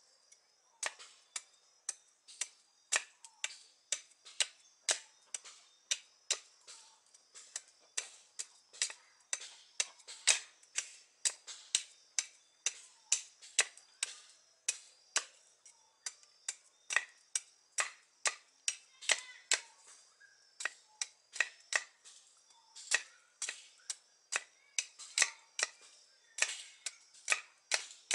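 Knife blade cutting into a wooden stick: short, sharp wooden clicks at about two a second, one with each carving stroke.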